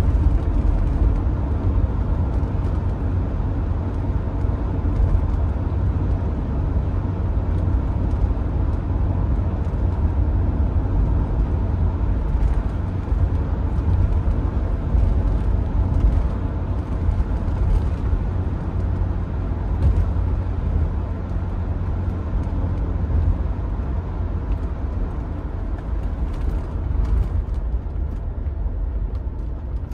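1980 BMW E23 735i's straight-six engine running at a steady cruise, heard from inside the cabin along with a low tyre and road rumble.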